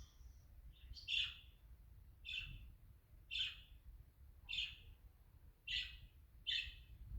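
Pet budgerigar giving a series of short chirping calls, about one a second, six in all.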